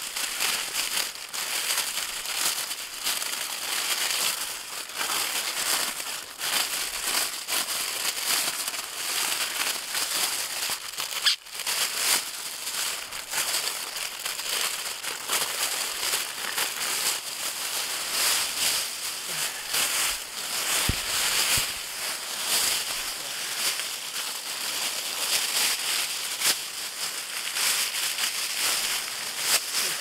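Foil emergency survival blanket crinkling steadily as it is handled, with a brief break a little after ten seconds in.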